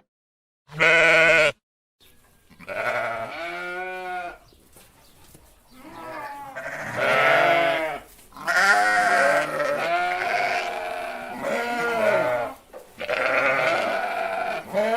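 Sheep bleating: after a moment of silence, one short clipped bleat, then a run of bleats with short gaps, some with a wavering pitch, some overlapping.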